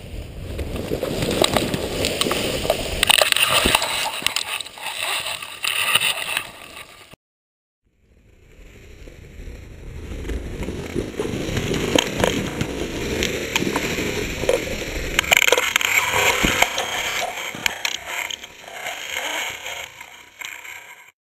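Pine branches rustling, scraping and snapping against a paraglider pilot and his harness as he sinks through the treetops in a tree landing, with many sharp cracks. The sound cuts out briefly about seven seconds in, then resumes and ends abruptly.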